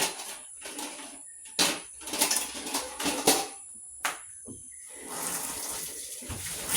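A cooking pot and utensils clatter with several sharp knocks, then water starts pouring into the pot about five seconds in and keeps running.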